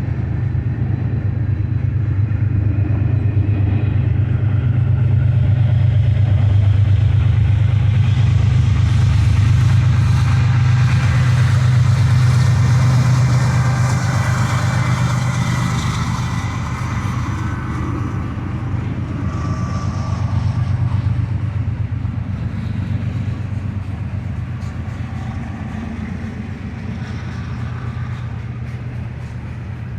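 A vehicle's steady low engine rumble, growing louder over the first dozen seconds and then slowly fading.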